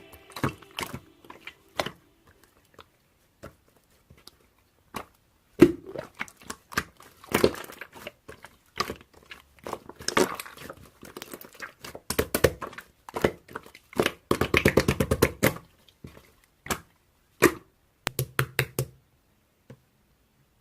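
Slime being squeezed and pressed by hand, making scattered wet pops and crackles, with a fast run of pops about three-quarters of the way through.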